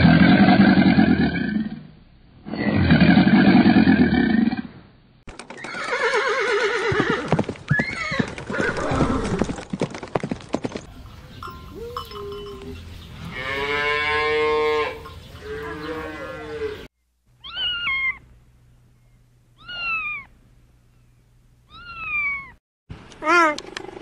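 A run of animal calls. First an alligator bellows: two long deep rumbles, followed by rougher calls. Then a cow moos in a long drawn-out call, and then a cheetah chirps, with short high falling chirps, three spaced apart and then a quick series near the end.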